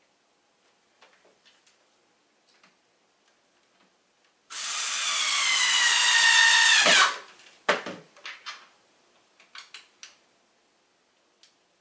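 Electric drill/driver running a screw in for about two and a half seconds, its motor whine sagging and then dropping sharply as the screw seats and the drill stops. A few short clicks and knocks follow.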